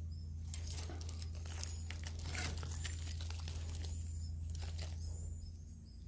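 Edible-nest swiftlets in a swiftlet house making many short, sharp clicks and brief high chirps over a steady low hum.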